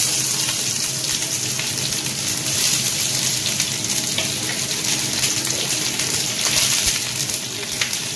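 Chopped red onion sizzling steadily in hot oil in a non-stick frying pan, just added and frying toward brown.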